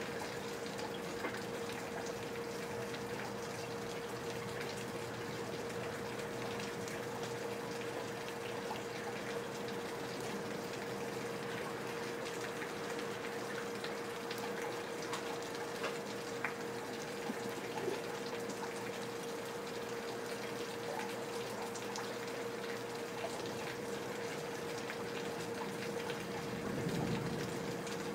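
Steady rain with water pouring and splashing from leaky gutters, scattered drips clicking through it. A steady faint hum runs underneath, and a brief low rumble swells near the end.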